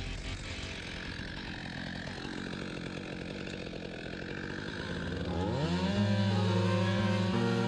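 Two-stroke chainsaw running with a steady, fine pulsing. About five seconds in, music with a rising slide and held notes comes in over it.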